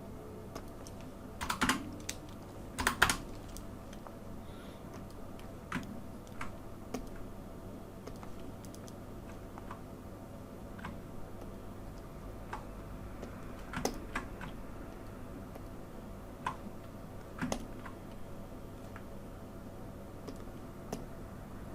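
Computer keyboard keys pressed now and then while working software: a couple of quick clusters of key clicks in the first few seconds, then single clicks every second or few, over a faint steady hum.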